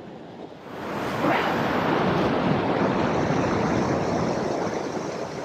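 Sea surf washing against a rock ledge: a wave surges in about a second in and the rush of white water runs on, easing off near the end.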